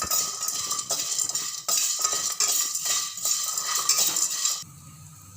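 A utensil stirring and scraping whole spices (peppercorns, cardamom pods, long pepper, lesser galangal) around a pan as they dry-roast. The spices rattle with many small clicks, and the sound stops about four and a half seconds in.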